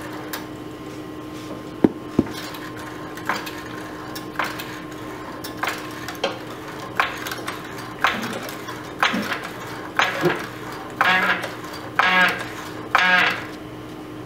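Hydraulic floor jack being pumped by its handle to lift a golf cart, about one stroke a second, each stroke a short metallic clank. The last few strokes creak and squeak as the cart's weight comes onto the jack.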